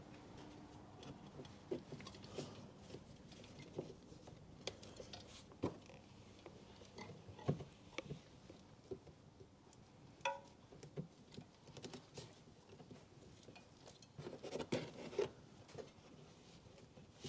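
Faint scattered clicks, taps and rustles of hands feeding a brake pad wear sensor wire through behind a plastic wheel arch liner, with a short squeak about ten seconds in and a quick run of knocks near the end.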